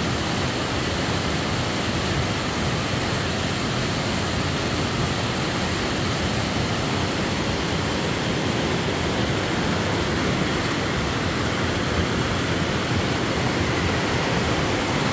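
Swollen, muddy stream running high after thunderstorms, rushing over and between boulders: a steady, unbroken rush of water.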